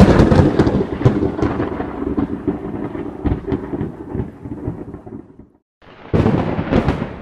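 Thunder sound effect: a loud clap that rumbles away over about five seconds. After a brief dead silence, a second clap with sharp cracks comes about six seconds in.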